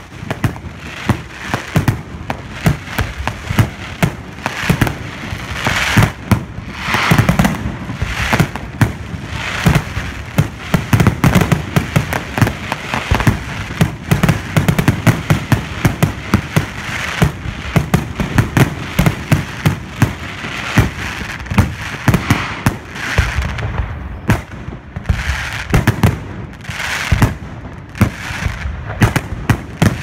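Aerial firework display: shells bursting overhead in a dense, unbroken run of sharp bangs, many each second, with crackling between them.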